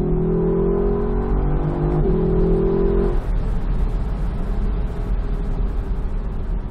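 Lexus LC 500's 5.0-litre 2UR-GSE V8 pulling under load, its note rising slowly, until the throttle is lifted just after three seconds. The engine note then drops away into the overrun, leaving wind and road rumble with scattered light crackles.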